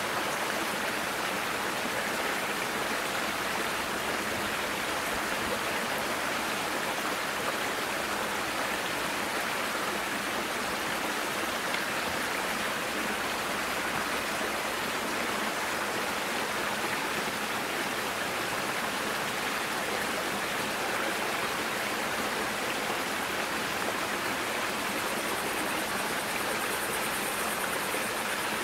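Steady, even rushing noise like running water from a stream, unchanging throughout; a faint high hiss joins in near the end.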